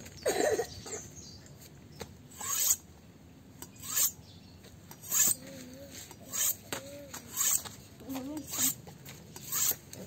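A long bullnose slaughtering knife drawn along a Victorinox honing steel: a series of separate metal-on-metal scraping strokes, roughly one a second, as the blade is being sharpened.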